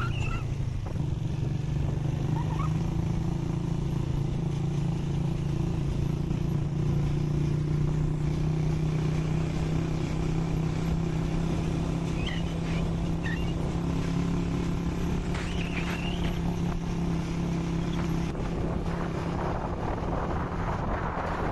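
A vehicle engine running with a steady low hum, easing off near the end as wind noise rises on the microphone. A few short high chirps come through about two-thirds of the way in.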